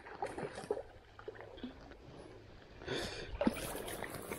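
Faint rustling and handling noise with scattered small clicks, growing into louder bursts of rustling about three seconds in.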